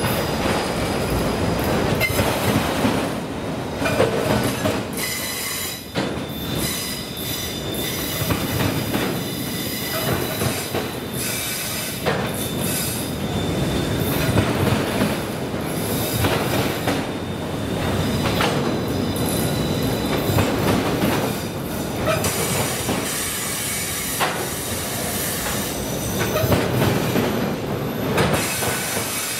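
Freight cars of a slow CSX train rolling over a railroad track crossing: steady wheel noise with frequent clanks and knocks over the crossing and a thin, high wheel squeal.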